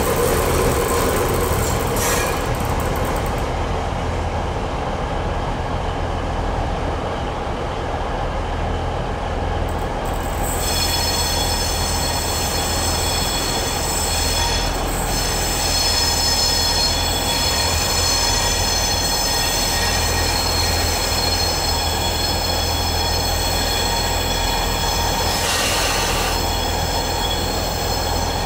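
Train wheels squealing on the rails as a train moves slowly through the station, a set of high steady whistling tones that sets in about a third of the way through, over a low steady engine rumble.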